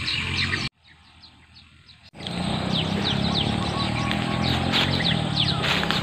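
Birds calling in a string of short, falling chirps over steady outdoor background noise. The sound drops to faint for about a second and a half shortly after the start, then comes back.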